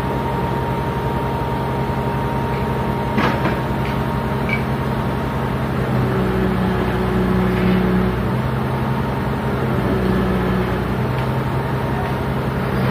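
Heavy diesel engine of a mobile crane running steadily, pulling harder for a couple of seconds about six seconds in and again around ten seconds. A single sharp metallic knock about three seconds in.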